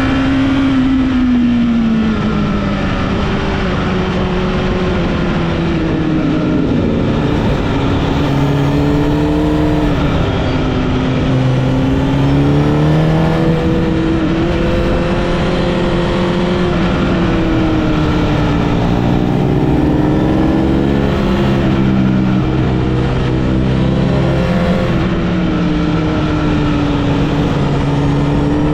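Honda CBR1000RR (SC77) inline-four motorcycle engine pulling and easing off through the gears, its pitch rising and falling every few seconds, over a steady rush of wind and road noise.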